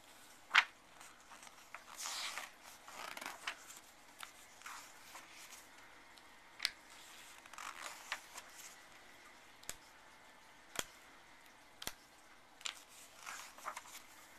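Pages of a book being handled and turned: short papery rustles and scattered sharp clicks, the loudest click about half a second in.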